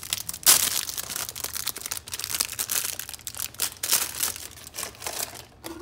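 Plastic wrapper of a Daiso soft clay packet crinkling and crackling in the hands as it is peeled open and the clay squeezed out of it, a dense run of crackles that dies away shortly before the end.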